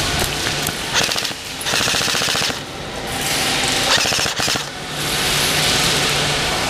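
Airsoft rifle firing on full auto in several short bursts, each a rapid clatter of shots.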